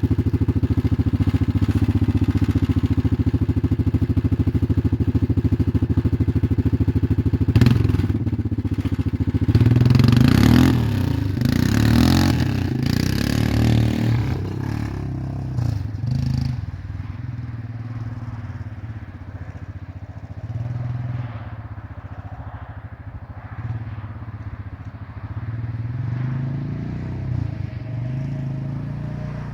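1996 Yamaha Kodiak 400 ATV engine idling steadily, then a clunk about eight seconds in. It revs up for a few seconds, and the engine sound then fades gradually with small surges as the machine moves away.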